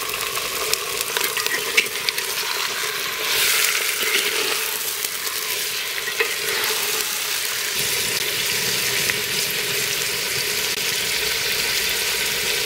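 Raw duck pieces frying in hot mustard oil and whole spices in a clay pot, just added: a dense, steady sizzle that swells briefly about three seconds in, with a few light clicks.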